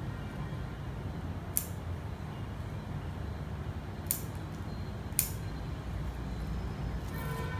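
Three crisp snips of bonsai scissors cutting through the tree's twigs, about a second and a half, four and five seconds in, over a steady low background hum.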